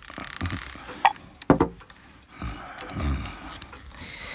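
Film sound effects of small tools being handled at a watchmaker's bench: light metallic clicks and a sharper knock, with a low drawn-out sound about halfway through.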